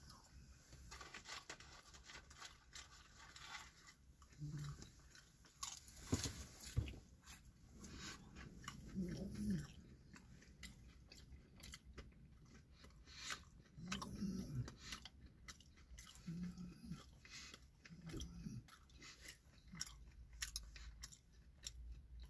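Close, quiet chewing and crunching of fast-food fries and a crispy chicken sandwich, with scattered crisp mouth clicks and a few short low hums between bites.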